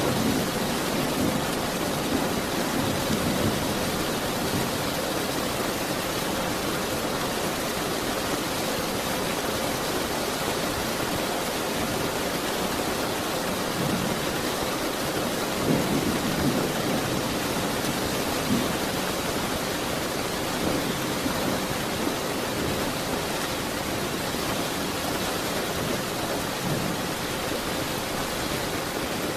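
Steady heavy rain falling, with low rolling thunder swelling in the first few seconds and again about halfway through.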